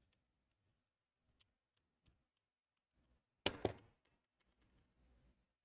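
A few faint clicks, then a short, louder clatter about three and a half seconds in: small tools and parts being handled on an opened laptop.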